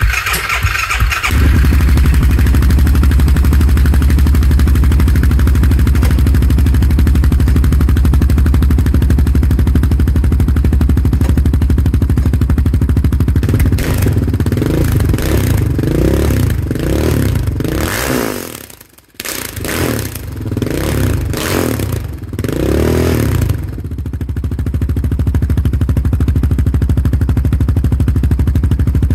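Honda TRX700XX ATV's single-cylinder engine starting on the electric starter and running through a Sparks Racing stainless full exhaust fitted with a Sparks quiet tip. It idles steadily, is revved in a series of throttle blips about halfway through, then settles back to idle.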